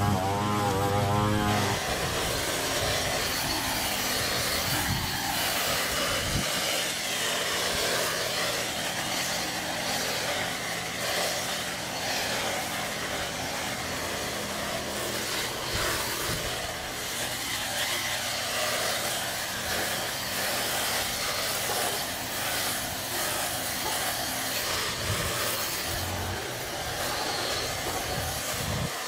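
Small gas engine of lawn-care power equipment revving up in the first second or so, then running steadily at high throttle with a strong, steady rushing noise.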